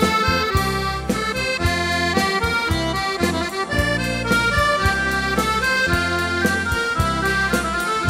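Instrumental background music: a held, many-voiced melody over a bass line that moves in regular steps.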